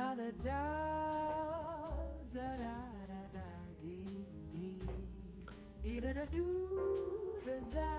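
Background music: a song with a wavering sung or hummed melody over bass and a light beat.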